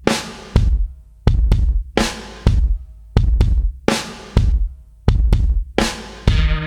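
Background music: a drum-kit beat of kick and snare hits, with a sustained bass line coming in near the end.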